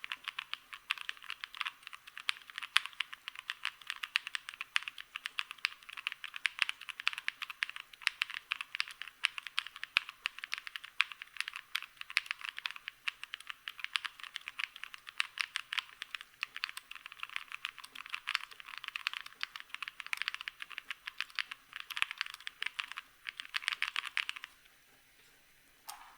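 Continuous fast typing on a GOK 7V plateless 75% mechanical keyboard with lubed Black Cherry Pie linear switches and GMK Apollo keycaps; the board has no plate, no foam and a tape mod. The keystrokes stop suddenly near the end.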